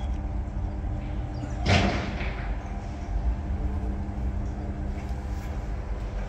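Automatic roller shutter door's motor running steadily as the slatted curtain rolls down, a low hum with a brief, louder noise about two seconds in.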